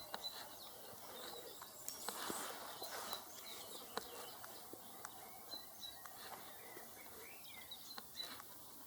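Small songbirds chirping and calling outdoors: faint, short high chirps scattered through, with a few brief gliding notes and occasional soft clicks.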